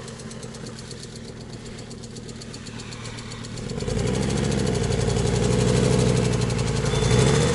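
An engine running at idle, getting louder and busier about four seconds in, then cutting off abruptly at the end.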